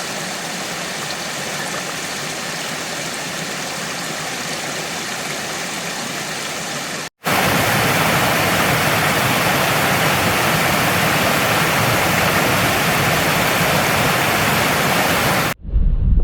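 Rushing water of a mountain stream or cascade, a steady hiss heard in two cuts. The second cut, starting about seven seconds in, is louder and closer.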